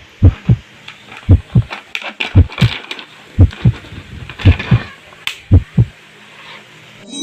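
A recorded heartbeat sound: six evenly spaced double thumps, lub-dub, about one a second, then it stops near the end.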